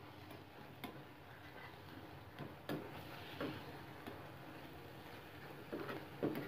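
Spatula scraping and knocking against a frying pan while stirring grated apple halwa: a few scattered soft scrapes and taps, the loudest pair near the end.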